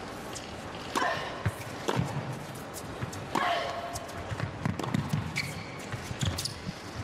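Tennis serve and rally: a ball struck back and forth with rackets, with sharp hits and bounces throughout and short vocal grunts on shots about a second in and again about three and a half seconds in.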